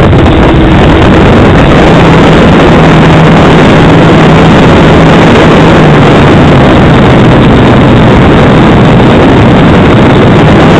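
Wind rushing over the microphone of a small camera riding on an RC glider in flight: a loud, steady, overloaded rush that starts abruptly at the hand launch. A faint low hum runs under it and steps down in pitch about halfway through.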